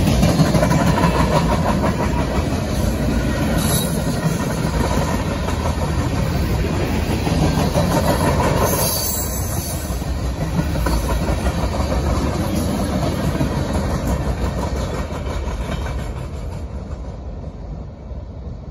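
Freight train tank cars and covered hoppers rolling past: a steady rumble and clatter of steel wheels on rail, with a few sharper clanks. It fades over the last few seconds as the end of the train moves away.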